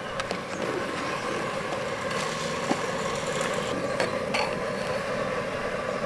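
A large pot of rice water at a rolling boil, bubbling steadily, with a few light clicks from a metal perforated skimmer against the pot. The rice is being parboiled for biryani and is about seventy percent cooked.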